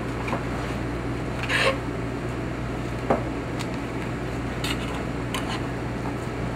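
Chef's knife cutting a loin off a whole yellowfin tuna on a plastic cutting board: a few scattered soft taps and scrapes of the blade against the board. A steady low hum runs underneath.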